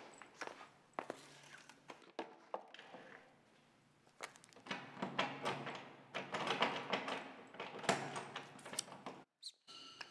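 Footsteps, then a doorknob turned and rattled again and again against a locked door, with clicks and knocks of the latch.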